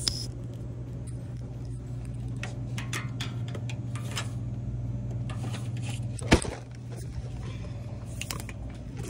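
Metal shopping cart rattling and clinking as it is pushed, over a steady low hum, with one sharp knock about six seconds in.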